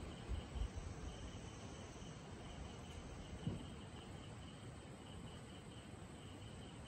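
Crickets chirping, a faint steady pulsing trill, with a few low thumps in the first second and one more about halfway through.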